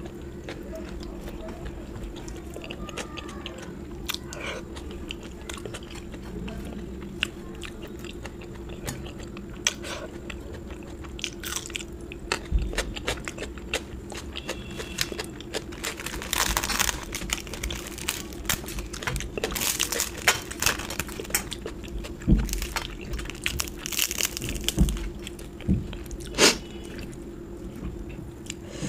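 A person eating close to the microphone: steady chewing with many small wet mouth clicks, and a few louder crunchy bites in the second half, over a steady low hum.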